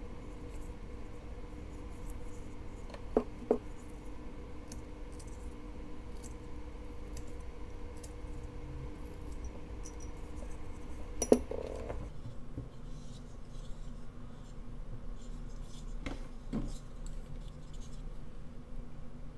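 Small carving knife paring fine cuts in basswood: faint, short scraping slices, with a few sharp clicks, two about three seconds in and the loudest just past the middle.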